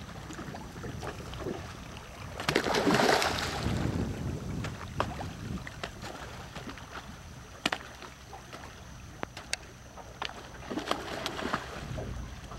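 A school of redfish splashing and churning at the water's surface, with one loud splash about two and a half seconds in and scattered smaller splashes and plops after it. A steady low wind rumble on the microphone runs underneath.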